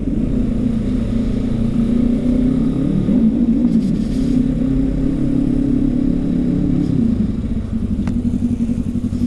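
Motorcycle engine running under way; its pitch rises and falls between about two and three and a half seconds in, then settles lower about seven seconds in as it eases off.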